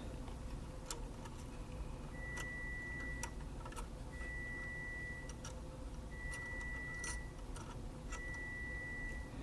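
Four long electronic beeps at one steady pitch, about two seconds apart, each lasting a little over a second, with scattered small clicks of small metal parts and a screw being handled.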